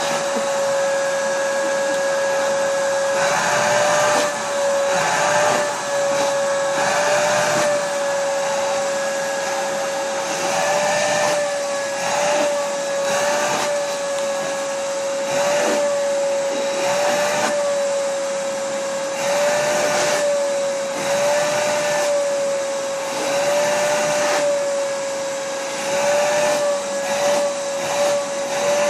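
Vacuum cleaner running continuously while being used to vacuum a cat's fur, a steady motor whine over the rush of air that wavers slightly in pitch every second or two.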